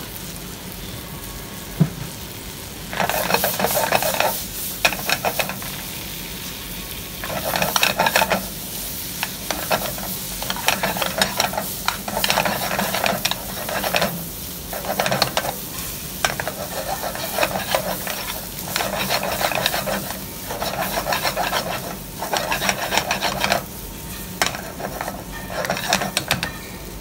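A steel spoon stirring thick chickpea curry in a hot frying pan on a gas flame. It scrapes through the gravy in repeated bouts of a second or two each, starting about three seconds in, with the curry sizzling.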